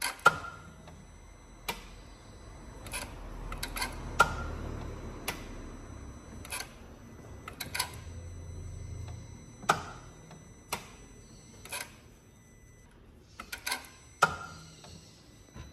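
Vectra's starter clicking repeatedly, about once a second, each time the key is turned, without cranking the engine over, and a faint low hum under some of the clicks. This is the sign of a failing starter motor, with a freshly swapped test battery.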